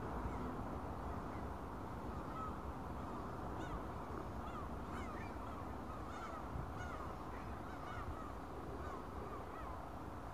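A flock of birds over the river calling again and again: many short calls, each rising and falling in pitch, a few every second, over a steady low background rumble.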